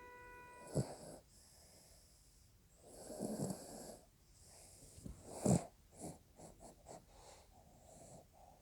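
Snoring: a longer snore about three seconds in, with short, sharp breaths before and after it.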